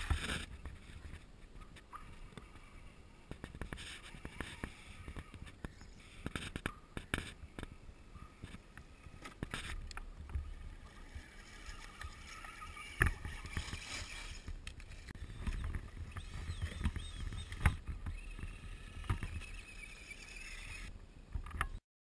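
Scale RC 4x4 truck driving through shallow water and slush on lake ice: splashing and sloshing around its tyres with frequent sharp clicks and crackles. A faint motor whine rises and falls near the end.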